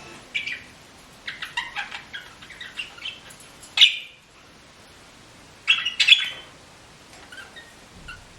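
A sick pet bird squeaking in a run of short, high calls, with two louder squawks just before the middle and around six seconds in.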